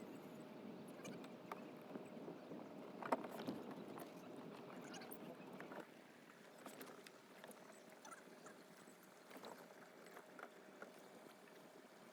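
Faint water sounds and light knocks around a kayak on the water, with one sharper knock about three seconds in.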